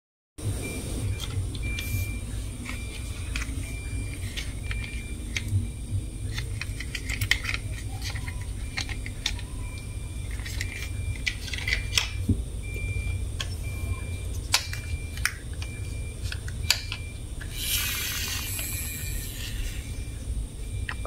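Plastic toy cars and trucks clicking and knocking as they are picked up and handled, with a longer rattling scrape near the end, over a steady low hum.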